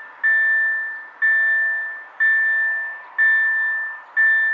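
Level crossing warning bell ringing, about one clear high strike a second, each fading before the next, the signal that a train is approaching.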